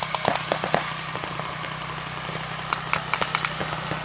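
Paintball markers firing in quick strings of sharp pops, one volley in the first second and another near the end, over a steady low hum.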